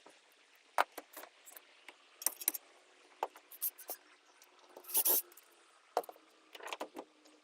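Irregular clicks, taps and clinks of hand tools and wiring being handled, with a brief louder scrape about five seconds in.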